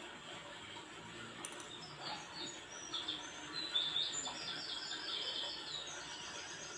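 Small bird chirping, with a run of quick high notes through the middle.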